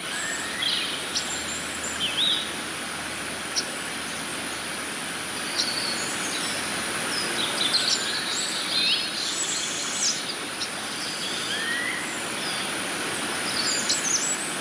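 Steady rush of a flowing river, with birds chirping and trilling on and off throughout.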